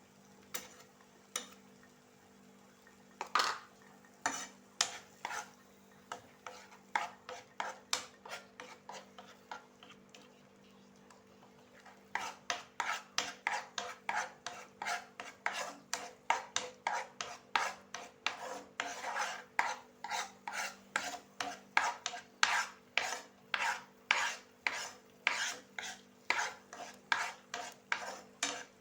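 A spoon scraping through thick ground-date halwa mixture in a pan as it is stirred, in repeated strokes. The strokes are scattered at first and settle into a quicker, steady rhythm of about three a second from around halfway. A faint steady hum runs underneath.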